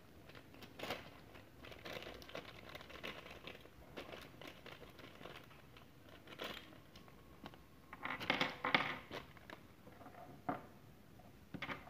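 Thin clear plastic bag crinkling and rustling as it is handled and opened, in scattered bursts with a few short clicks. The loudest stretch of crinkling comes about eight seconds in.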